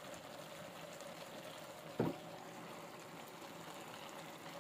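Pasta in tomato sauce simmering in a frying pan on a hotplate: a faint, steady bubbling hiss, with a single sharp knock about two seconds in.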